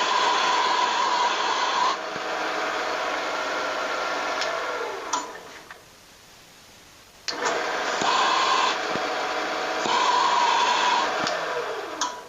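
Wood lathe motor running, then winding down with falling pitch about five seconds in. It starts again with a click a couple of seconds later, runs, and winds down again near the end.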